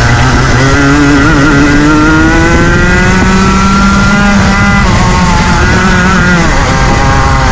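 Rotax Max Junior 125cc two-stroke single-cylinder kart engine racing at high revs and loud. Its pitch climbs steadily, drops sharply about four and a half seconds in and again about six and a half seconds in as the throttle comes off, then climbs again.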